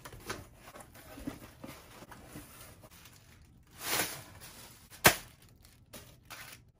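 Cardboard box flaps being opened, then plastic air-pillow packing rustling and crinkling as it is pulled out and tossed aside, loudest about four seconds in. A single sharp click a little after five seconds.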